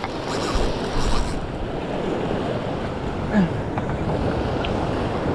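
Ocean surf washing steadily along a rocky shoreline, with wind buffeting the microphone.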